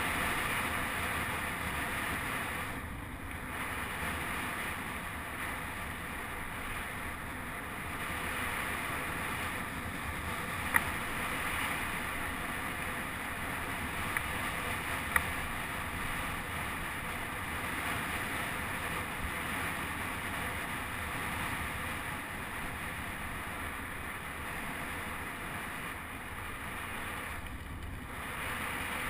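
Steady rush of wind over a helmet-mounted action camera, mixed with mountain bike tyres rolling on a gravel fire road. Short sharp clicks from the bike about eleven seconds in and twice more around fifteen seconds.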